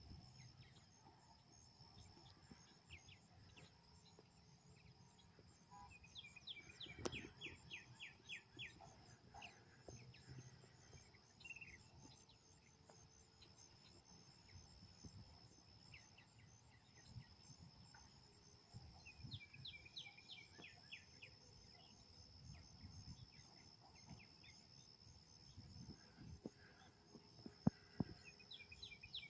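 Faint outdoor summer ambience: insects trilling in a steady high drone, while a songbird sings a short phrase of quick falling notes three times, about ten seconds apart. A brief knock comes near the end.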